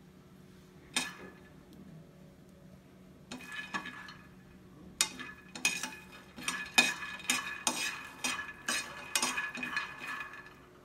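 A steel spoon stirring peanuts as they dry-roast in a frying pan: repeated scrapes and clinks of metal on the pan with the nuts shifting, starting a few seconds in and continuing almost to the end. A single clink about a second in.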